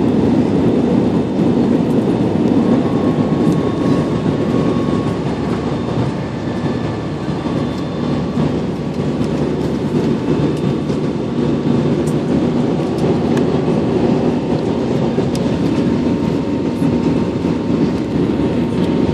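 Steady airliner cabin noise: the drone of the jet engines and rushing air, heard from inside the passenger cabin, with a faint steady hum on top.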